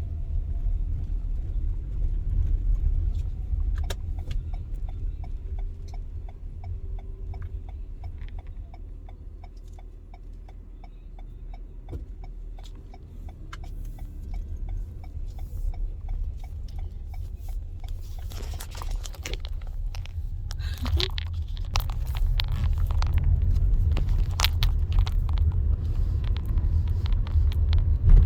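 Car cabin with a steady low rumble of engine and road noise. A turn-signal indicator ticks evenly, a couple of ticks a second, from about four seconds in until about sixteen seconds. Later, rougher irregular noises come in and the rumble grows louder toward the end as the car moves.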